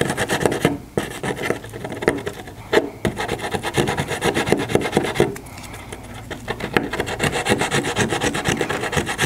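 A small piece of sandpaper rubbed by hand in quick, short scratching strokes into the cracks and holes of a pallet-wood panel, scuffing and cleaning out the defects so epoxy will bond. The strokes ease off briefly a little past halfway.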